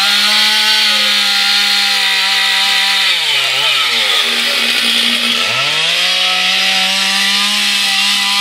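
Petrol chainsaw cutting logs at full throttle. Its pitch holds high for about three seconds, drops to idle for a moment, then revs back up and holds high again.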